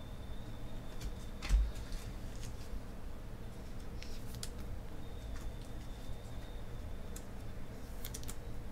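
2017 Panini Chronicles baseball cards being handled and set down onto a stack on the table: scattered light clicks and taps, with one louder thud about a second and a half in.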